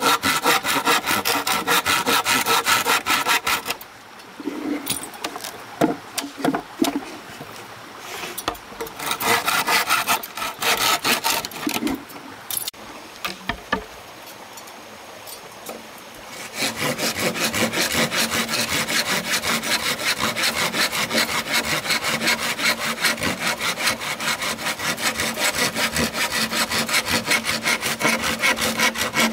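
Hand saw cutting through wood with quick, even back-and-forth strokes. The sawing stops a few seconds in, giving way to scattered knocks and scrapes, and starts again, steady, after about a dozen seconds.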